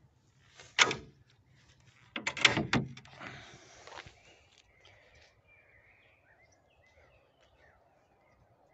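Sharp metallic knocks from a homemade steel-framed tipping trailer box being handled: one sharp knock about a second in, then a quick run of knocks and a clatter between two and three seconds in. Faint bird chirps follow.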